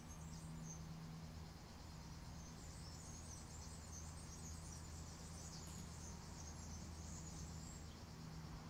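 Quiet outdoor ambience with faint, irregular high chirping over a low steady hum; the church bells are silent, hanging at rest.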